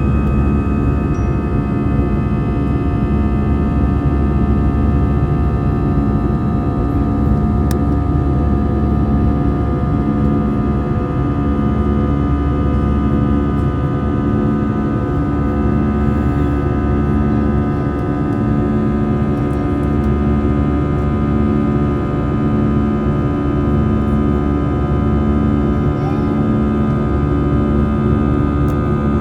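Airbus A320 cabin noise from a window seat: the jet engines running steadily, with a deep rumble and several steady whining tones. A slow, regular throb comes from the two engines turning at slightly different speeds.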